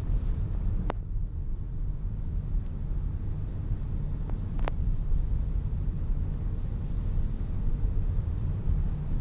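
Car driving, a steady low rumble of engine and road noise, with two sharp clicks, about a second in and again near the middle.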